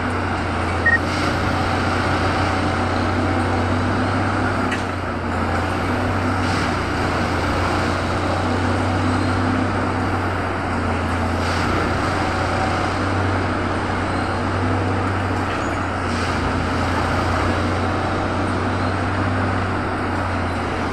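Diesel engine of a rail track-maintenance machine running steadily, a constant low hum. There is a brief sharp blip about a second in and a few faint ticks.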